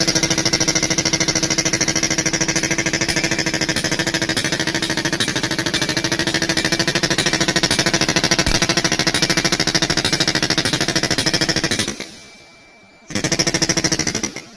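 Snap-On pneumatic air hammer running with a very rapid, even hammering. It stops about twelve seconds in, then fires again in a short burst after about a second's pause.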